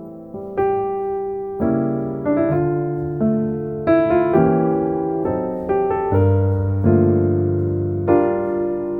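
Piano playing a slow sequence of full, sustained chords, a new chord struck about once or twice a second, each ringing and fading before the next.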